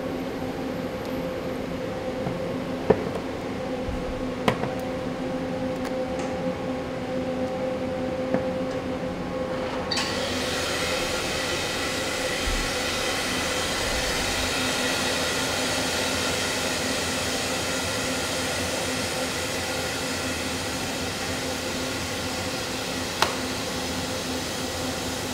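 Large industrial food-processing machine running with a steady hum, with a few sharp metallic clicks. About ten seconds in a louder whine-and-hiss layer of many steady tones starts suddenly and holds.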